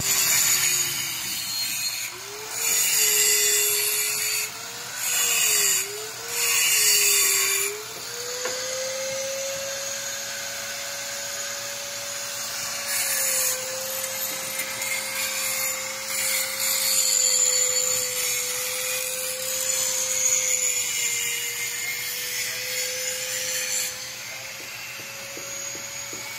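Electric angle grinder grinding metal: the motor's whine dips in pitch each time the disc bites, with three loud grinding passes in the first eight seconds, then steadier running with lighter contact.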